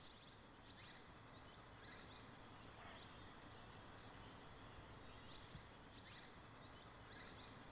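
Near silence: faint outdoor forest ambience with a few faint, short bird chirps scattered through it.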